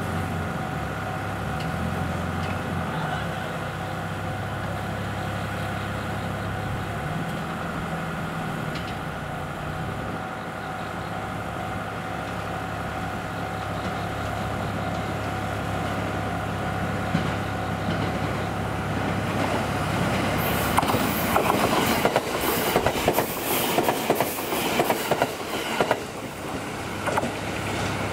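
KiHa 75 diesel railcar's engine running steadily as the train approaches, its pitch stepping a few times in the first half. In the last third a train's wheels clatter loudly over rail joints and points.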